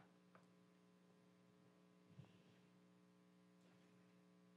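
Near silence: a faint, steady electrical hum, with a couple of very faint soft taps about two seconds in.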